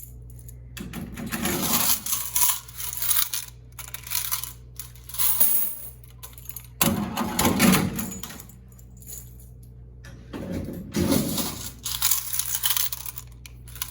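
Coins, quarters, rattling and pouring in repeated jingling bursts, loud enough to drown out a voice.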